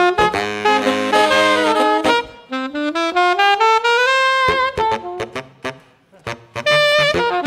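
Saxophone quartet of alto, two tenor and baritone saxophones playing live jazz. About two seconds in, the full band drops away to a single line sliding steadily upward in pitch. It then breaks into short, separated stabs before the whole quartet comes back in near the end.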